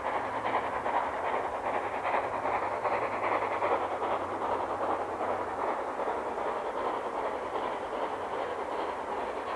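Steam locomotive working a train, a steady dense rush of exhaust and running noise.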